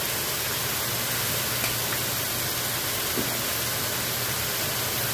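Mushrooms, spinach, bell peppers and onions sizzling in a skillet: a steady, even hiss.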